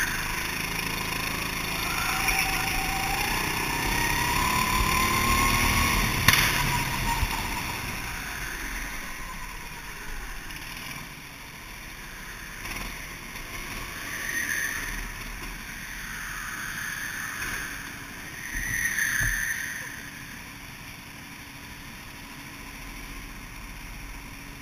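Rental go-kart running on an indoor track, its engine pitch rising over the first few seconds, with a sharp click near the middle of that stretch. It then slows and runs quieter at low speed, with a few brief louder swells.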